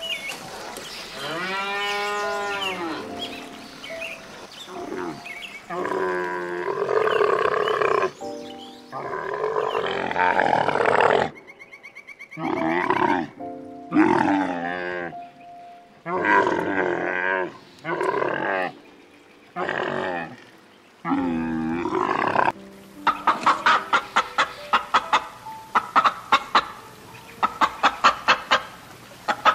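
A run of farm animal calls: a cow mooing at the start, a camel's deep calls in the middle, and chickens clucking in quick bursts near the end.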